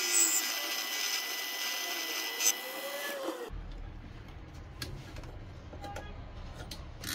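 Proxxon mini lathe running, a loud steady machine noise with a high whine, that cuts off abruptly about three and a half seconds in. After it come a low hum and scattered small clicks as a digital caliper is handled.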